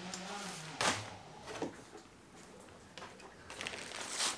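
Faint handling noises as a parcel is taken from a cardboard box: a sharp knock about a second in, then a rustle near the end.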